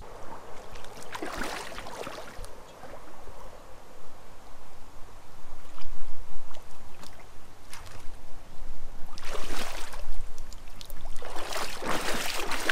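River water splashing and sloshing in several short bursts as a hooked barbel is played and netted in the shallows, over a steady low rumble.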